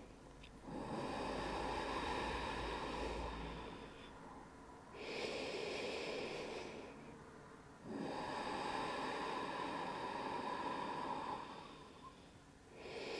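A woman breathing slowly and deeply in and out, about three full breaths with a fourth beginning near the end. Each breath is a soft rush of air lasting two to three and a half seconds, with brief pauses between.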